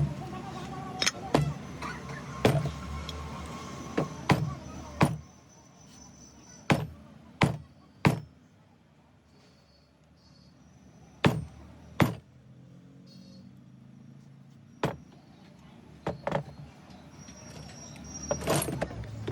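Irregular sharp knocks and clanks, about fifteen spread unevenly over the stretch, from tools striking and handling metal parts while a monoblock pump is stripped down for a bearing change.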